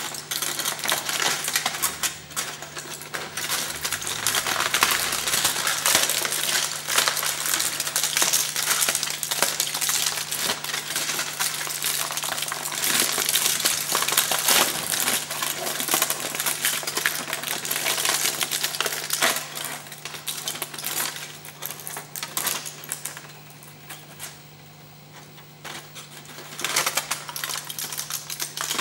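Aluminium foil being crumpled and pressed by hand: dense crinkling and crackling that eases off for a few seconds about three quarters of the way through, then picks up again near the end. A steady low hum runs underneath.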